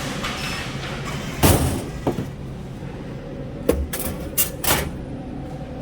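Drink vending machine being test-vended: a heavy clunk about a second and a half in, a lighter knock after it, then a quick run of four sharp clicks and knocks, over the machine's steady hum.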